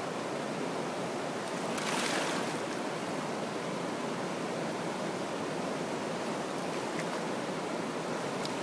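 Steady rush of flowing river water, with a brief louder swish about two seconds in.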